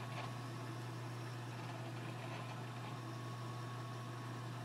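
Drill press motor running steadily with a low hum as the twist bit bores down into an oak handle block.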